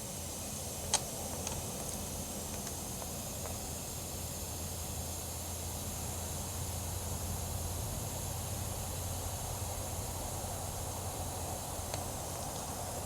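Steady low hum and hiss, with one sharp click about a second in.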